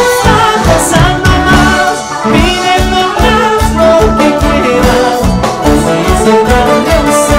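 A live Andean band playing a carnaval marqueño: saxophones and electric bass over a steady beat, with a man singing.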